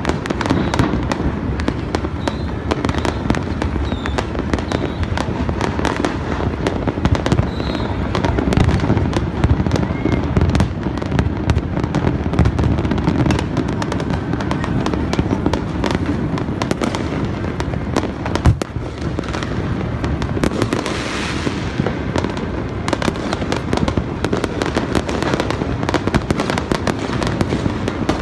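Dense, continuous popping and banging of fireworks and firecrackers going off across the city, with one louder bang about eighteen seconds in.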